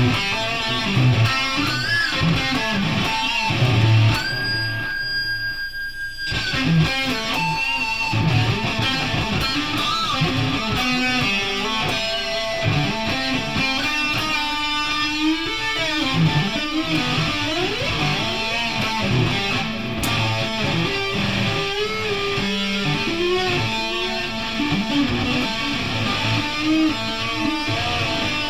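Electric guitar music, plucked and strummed, with notes bending in pitch and a steady held high tone for a couple of seconds about four seconds in.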